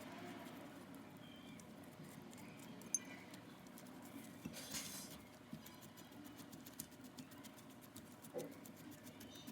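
Faint handling sounds: scattered light taps and clicks over a low steady hum, with a short rustle about five seconds in.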